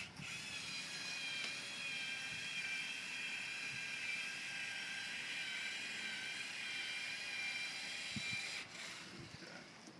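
Electric adhesive gun's motor whining steadily as it extrudes a bead of windshield adhesive, then cutting off about a second before the end.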